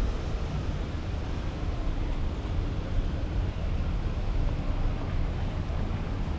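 Wind buffeting the microphone over a steady low rumble, with a faint hum like a running engine.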